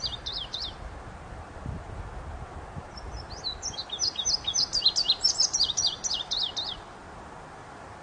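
Songbird singing: a quick run of high, sharp chirping notes that ends within the first second, then a longer run of rapid notes from about three seconds in to near seven seconds, over a steady background hiss.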